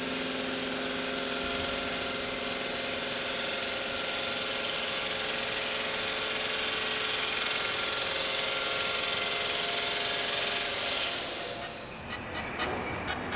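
Park Industries VOYAGER XP CNC bridge saw's blade plunge-cutting a stone slab under water coolant: a steady hissing machine whine with a few steady tones. It cuts off sharply about 12 seconds in, and music with a ticking beat starts.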